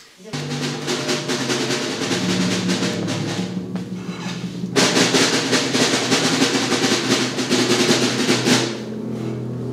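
Background music with rapid drumming, like a drum roll, over held low notes. It starts abruptly at the very beginning and grows louder and brighter about halfway through.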